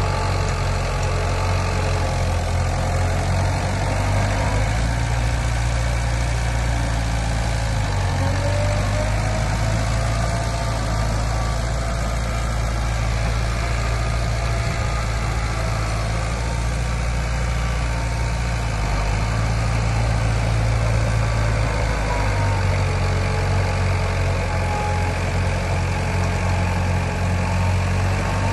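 Diesel engine of heavy earthmoving equipment running steadily, its low hum shifting in pitch a few times as the load or throttle changes.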